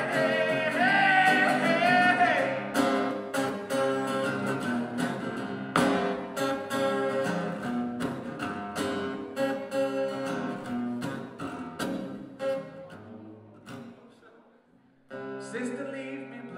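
Acoustic guitar strummed live, with a male voice singing over it for the first couple of seconds, then guitar alone. The playing fades away near the end and cuts back in suddenly.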